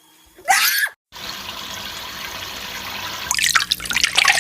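Steady running water from a tap or shower, starting just after a brief cut. It is preceded by a short rising bird call about half a second in, and a flurry of short sharp chirps and splashes comes over the water from about three seconds in.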